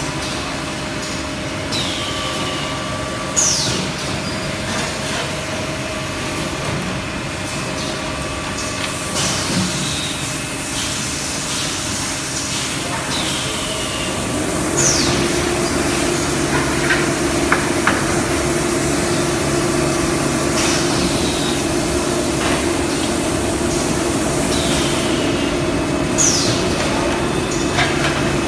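Cement roof tile making machine running with a steady mechanical drone. A short falling screech repeats about every five to six seconds as the press cycles. About halfway through a steadier hum sets in and the machine grows louder.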